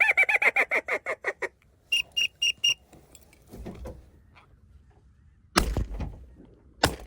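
Duck calling: a fast run of about a dozen quacking notes, then four short high whistled peeps. Then two shotgun shots about a second and a half apart at teal over the decoys.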